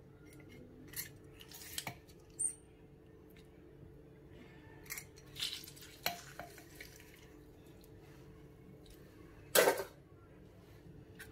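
Metal hand-held lemon squeezer clicking and clinking against a steel mixer jar as lemons are pressed for juice: scattered light taps, with one louder knock about nine and a half seconds in. A faint steady hum lies underneath.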